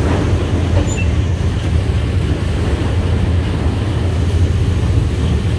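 Steady low rumble of an Enterprise passenger train running, heard from inside the driving van trailer's cab.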